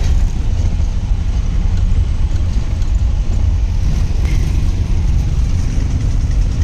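A car driving slowly, heard from inside the cabin: engine and road noise as a steady low rumble.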